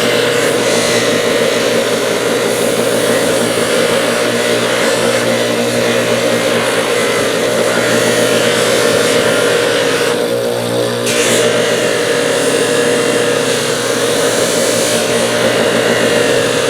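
Power tool with a spinning abrasive or buffing wheel running steadily against the metal of old linesman pliers, a constant motor hum under a hiss. The hiss eases briefly about ten seconds in.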